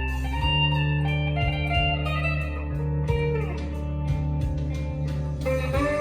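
Squier Bullet Stratocaster electric guitar played clean through a Fender Mustang LT25 amp on its Fender Clean channel: ringing chords and single notes, with a note sliding down in pitch about three seconds in and new notes struck near the end.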